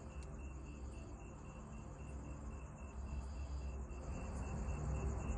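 Faint insects chirping: a high, steady trill that comes and goes in spells about a second long, over a low rumble.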